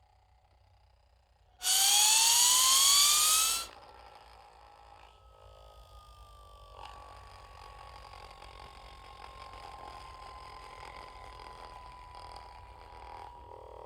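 Cartoon sound effect: a loud pitched tone slides steadily upward for about two seconds and cuts off. A quieter tone then sinks slowly in pitch for the rest of the time.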